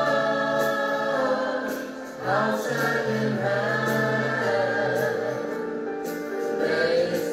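Recorded Christian worship song playing, a choir singing long held notes over a steady accompaniment, with a short break between sung lines about two seconds in.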